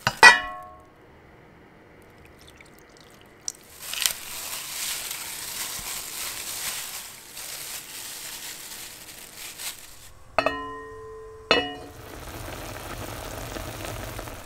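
Kitchen sounds at an enameled cast-iron pot. A ringing clink as a bowl of raw beef chunks is tipped in, a few seconds of wet, hissing handling noise as the meat is mixed with onions and garlic, two more ringing clinks about ten seconds in, then the beef simmering in its sauce with a soft, steady bubbling hiss.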